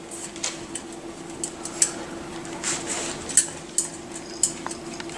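Miniature schnauzer puppies licking and nosing an emptied stainless steel feeding pan, with irregular small clinks and taps of metal. A faint steady hum runs underneath.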